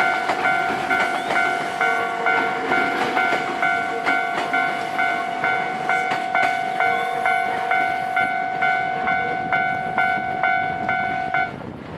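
Japanese railway level-crossing warning bell clanging about three times a second over a steady tone, with a train running past beneath it. The bell cuts off abruptly shortly before the end, the sign that the train has cleared the crossing.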